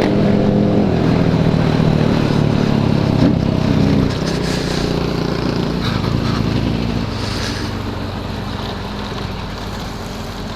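Motorcycle engine running loud for about four seconds, then easing off and getting gradually quieter.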